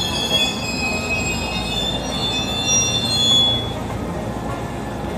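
Railway wheels squealing as a train moves slowly through the station tracks, over the steady rumble of the running train. The squeal is several high tones held together, and it fades out a little under four seconds in.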